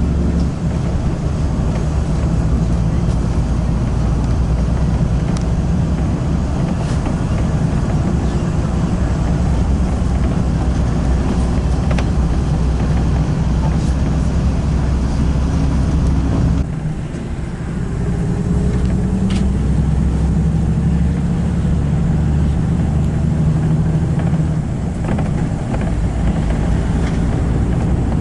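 Car on the move: a steady engine and road rumble, which dips briefly about seventeen seconds in before the engine note climbs slowly and then holds.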